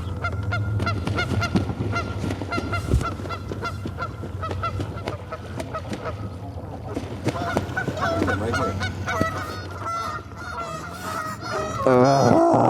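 A flock of geese honking, many calls overlapping, growing loudest near the end, over a steady low rumble.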